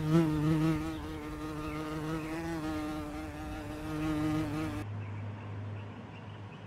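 A flying insect buzzing: a steady wingbeat buzz that wavers slightly in pitch and stops abruptly about five seconds in, leaving a faint low hum.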